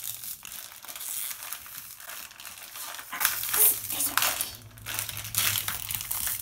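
Crinkling and crackling of a foil mystery bag being pulled and torn open by hand, growing louder and busier about three seconds in.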